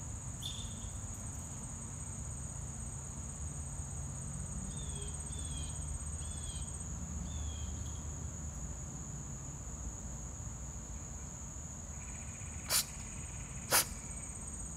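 Steady, high-pitched insect chorus, with a few short chirps about five to seven seconds in and two sudden, sharp, loud sounds a second apart near the end.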